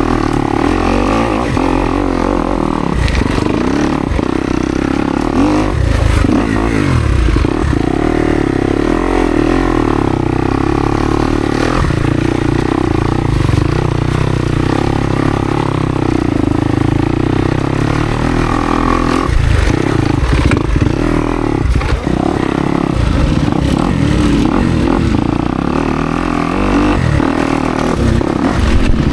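Kawasaki KX250X dirt bike's four-stroke single running under load, its revs rising and falling as it is ridden slowly over rough ground, with repeated clattering knocks from the bike over rocks and roots.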